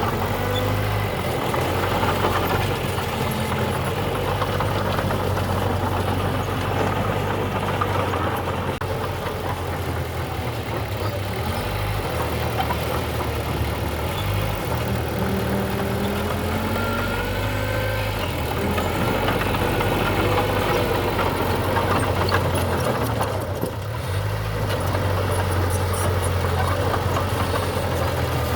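Heavy diesel engine of a construction machine running steadily, with a clattery undertone.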